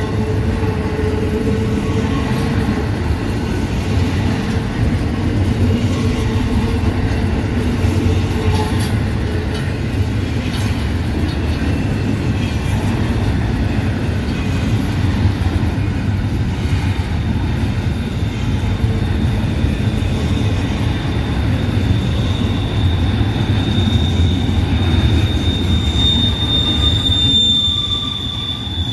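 Double-stack intermodal freight train's well cars rolling past, with a steady rumble of wheels on rail. A high-pitched squeal from the wheels builds from about two-thirds of the way in and is loudest near the end.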